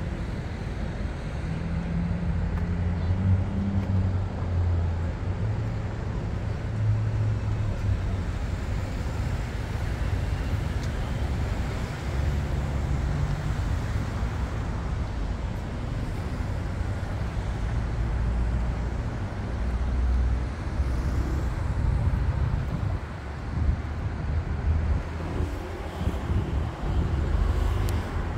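Road traffic noise: a steady low rumble of passing cars and trucks.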